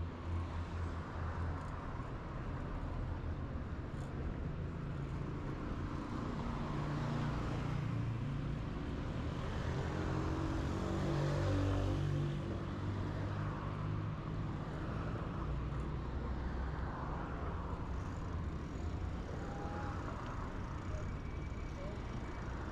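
Road traffic: steady engine and tyre noise of cars, with one car passing closer and louder about halfway through.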